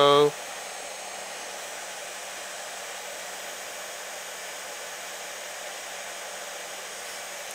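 CNC spindle motor running steadily at full speed, driven by its speed controller.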